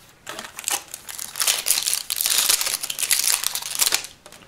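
Foil Yu-Gi-Oh booster pack wrapper crinkling and tearing as it is ripped open. A rapid crackle grows louder about a second and a half in and stops near the end.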